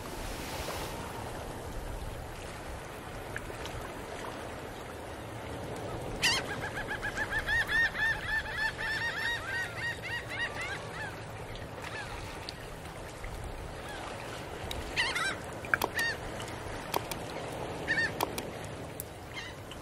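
Birds calling: a run of quick, repeated calls in the middle, over a steady background hiss, with a few sharp clicks near the end.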